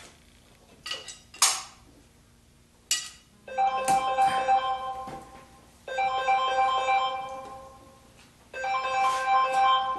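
A few sharp metallic clicks from a socket wrench working the valve cover bolts. Then, from about three and a half seconds in, an electronic musical phrase of held chords that repeats three times.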